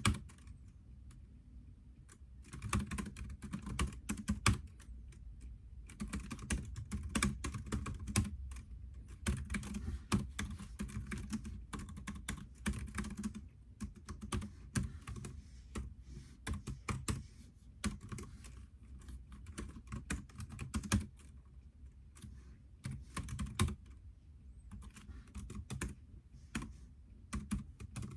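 Computer keyboard being typed on in runs of rapid key clicks, broken by short pauses of a second or two.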